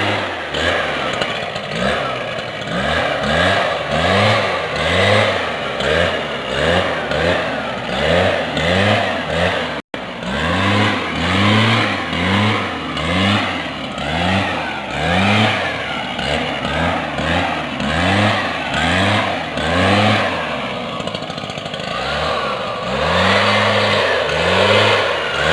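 Small petrol engine of a motorized crop-sprayer pump running, its pitch rising and falling in a regular surge about once a second.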